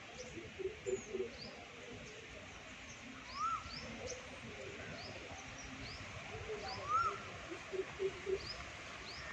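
Several birds calling outdoors: an arched rising-and-falling call repeated about every three and a half seconds, many quick high chirps, and a few groups of short low notes.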